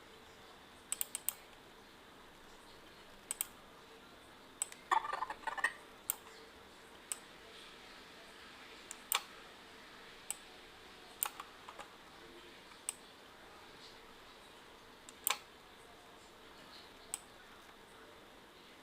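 Scattered clicks of a computer mouse and keyboard, with a short quick run of key presses about five seconds in, over a faint steady hiss.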